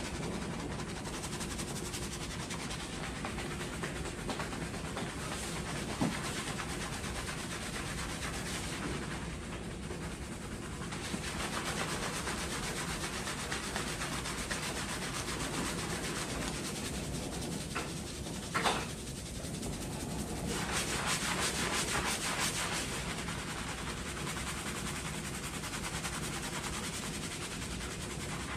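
Hands scrubbing a thick shampoo lather into hair and scalp, a steady wet rubbing and squishing. It gets louder in two stretches. A brief sharp knock sounds about two-thirds of the way in.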